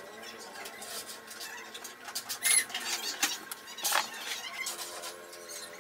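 Light clicks and taps of a steel ruler and pencil being handled and set down on a wooden board, the sharpest tap about four seconds in, with a short high squeaky chirp in the background about halfway through.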